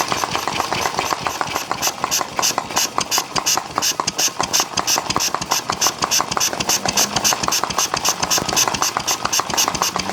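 Briggs & Stratton Model Y hopper-cooled engine running slowly, throttled down to a low idle, each firing stroke a distinct, evenly spaced pop.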